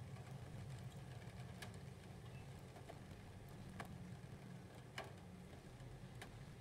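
A few scattered raindrops tapping as sharp, irregular ticks over a faint, steady low rumble.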